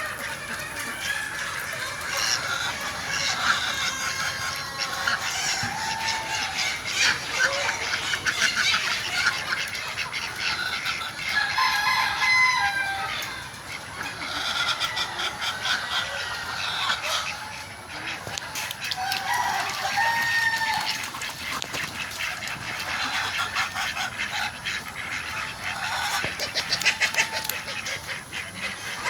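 A flock of free-range desi chickens clucking and calling continuously, with a rooster crowing now and then.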